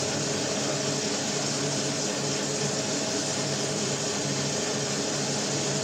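Homemade electric cargo quadricycle on the move on a wet road: a steady hum from its two 350 W electric motors over a constant hiss of tyres on the wet surface.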